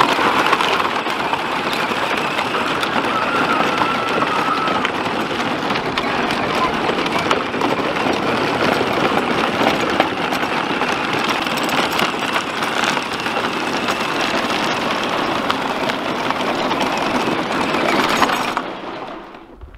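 Kids' battery-powered ride-on John Deere toy tractor driving over gravel while towing a small trailer: a steady rolling, grinding noise of its plastic wheels and motor, which dies away near the end.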